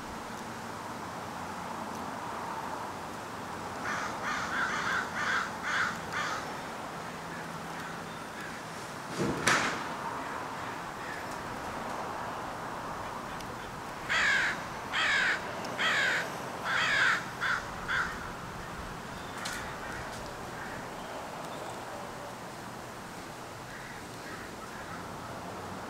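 American crow cawing in two runs of about six short, harsh caws each, one run a few seconds in and another past the middle. A single sharp thump falls between the two runs.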